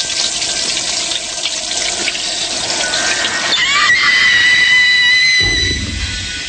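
Shower spray hissing steadily. About three and a half seconds in, a high held tone with overtones cuts in over it, and a low rumble enters near the end.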